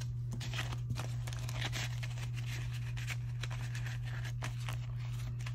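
Paper dollar bills and a clear plastic zipper pouch rustling and crinkling as cash is handled and slid into the pouch, in scattered short strokes over a steady low hum.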